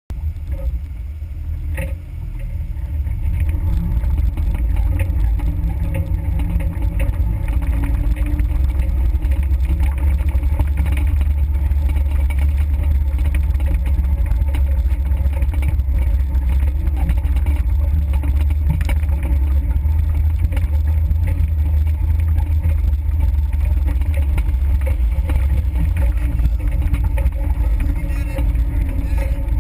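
Suzuki Samurai 4x4s driving over a dirt trail: a steady, dense low rumble of engine and driving noise picked up by a vehicle-mounted GoPro. It grows louder over the first few seconds, then holds.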